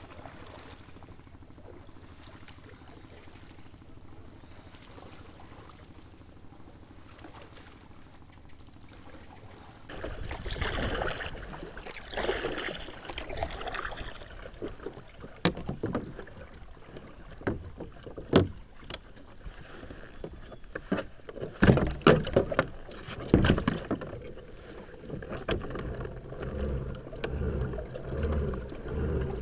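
Kayak on the water: a quiet steady hiss at first, then, about a third of the way in, water splashing and scattered sharp knocks, as of a paddle or gear striking the hull.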